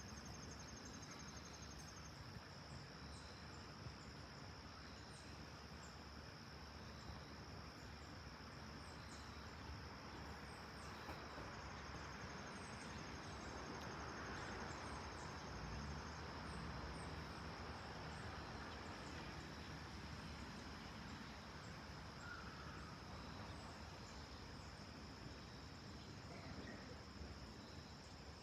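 Boeing 787-9 airliner passing high overhead: a faint, distant jet rumble that swells gently toward the middle and then fades. Insects keep up a steady high trill throughout.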